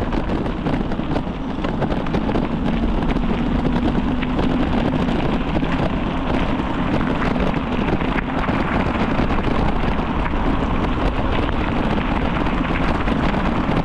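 Steady wind rumble on the microphone of a bicycle riding along a rail trail, with a fine crackle of the tyres rolling over the trail surface.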